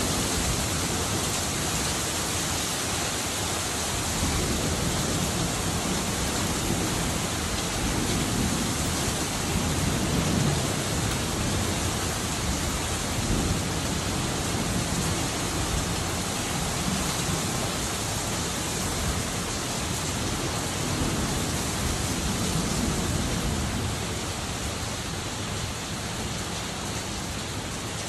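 Heavy rain pouring steadily into a paved courtyard, a dense, even hiss. A deeper rumble swells up a few times underneath it.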